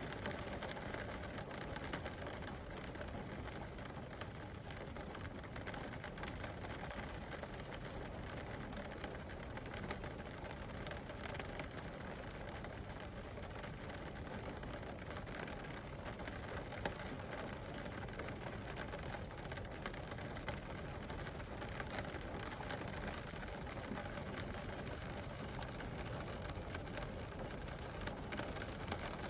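Steady rain falling: an even hiss with faint ticks of individual drops.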